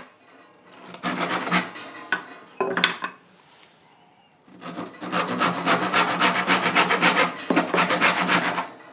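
A hand tool rasping over kiaat wood in quick back-and-forth strokes: a short bout near the start, then a long steady run of rapid strokes.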